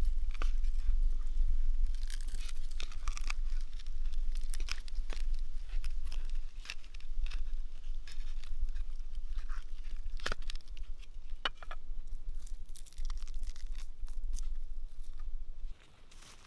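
A knife cutting apart fire-roasted lamb ribs on a wooden plate: the crisp crust crackles and tears, with scattered clicks and scrapes of the blade against bone and plate, over a low rumble. The sounds stop abruptly near the end.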